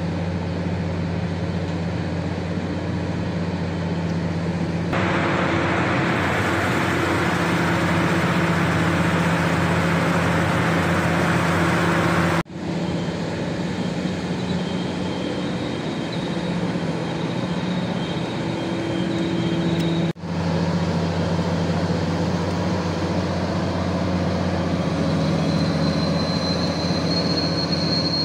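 Large excavator diesel engine running steadily with a low hum, the noise growing louder from about five seconds in as the machine works its hydraulics to hold and lower a suspended arm cylinder. A faint high whine comes and goes, and the sound drops out briefly twice.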